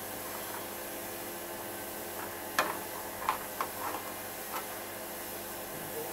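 Light clicks and knocks, about five of them in two seconds starting about two and a half seconds in, as the rear bodywork tail section of a Moto Guzzi Centauro is lifted off the bike's frame, over a steady hiss.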